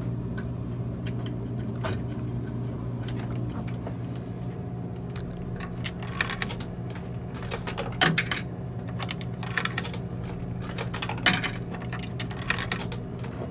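Coins clicking and clinking as they are fed into a drink vending machine's coin mechanism and drop through it, a scattered series of sharp clicks with the loudest about eight and eleven seconds in. A steady low hum from the running machine lies underneath.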